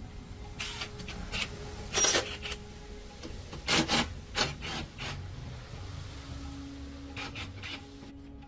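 A series of rough scraping or rubbing strokes, some in quick pairs, the loudest about two and four seconds in, with a quieter run near the end: hand work such as brushing or filing on a workpiece.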